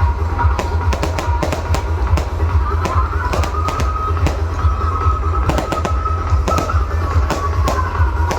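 Fireworks and firecrackers going off in many sharp, irregular bangs and cracks, over loud music with heavy bass. A steady high tone runs through it, stepping up a little about three seconds in and dropping back near the end.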